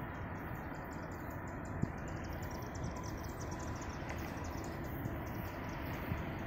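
Insects chirping in a fast, even pulse of several short high chirps a second, over a steady low rumble.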